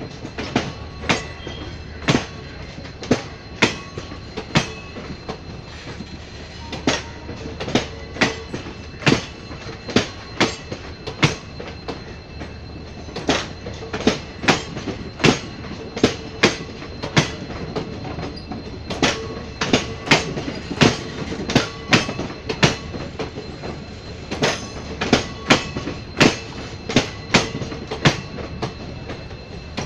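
Indian Railways ICF passenger coaches rolling past, their wheels clicking sharply over rail joints in groups over a steady rumble. The clicks come faster near the end as the departing train gathers speed.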